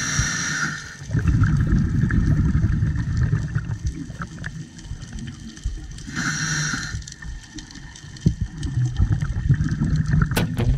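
Scuba diver breathing through a regulator close to the microphone. A short hiss of inhalation comes at the start and again about six seconds in, and each is followed by a few seconds of rumbling, gurgling exhaled bubbles.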